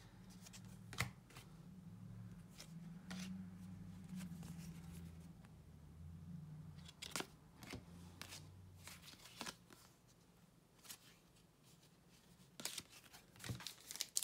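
Trading cards being flipped through by hand: faint scattered ticks and slides of card stock over a faint low hum that fades after about nine seconds. Near the end, denser crinkling as a foil card pack is handled.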